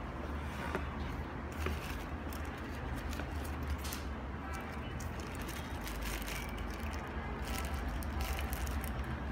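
A small clear plastic bag of spare shoelaces crinkling and rustling in the hand, with irregular crackles, over a steady low hum.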